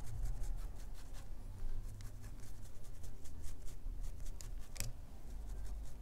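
A small brush stroked repeatedly through a spun dubbing loop of flashaboo and dubbing fibers on a fly in the vise: a run of quick, irregular scratchy brush strokes, one sharper stroke near the end.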